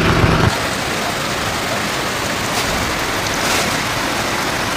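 Heavy rain falling in a steady, even downpour. A low hum cuts off about half a second in, leaving only the rain.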